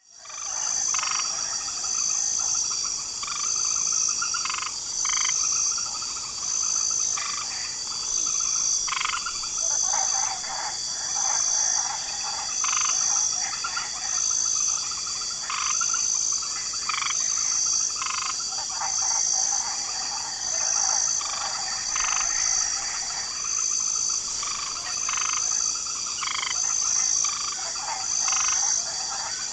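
Swamp night chorus: frogs croaking in short separate calls every second or two over a steady, high, pulsing trill of crickets. It fades in at the start.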